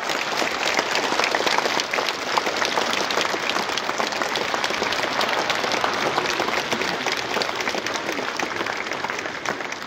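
Large crowd applauding, a dense steady patter of many hands clapping, easing off slightly near the end.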